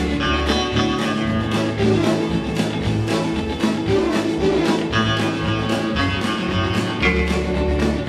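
Early-1960s instrumental music led by a twangy electric guitar melody over a full backing band with a steady beat.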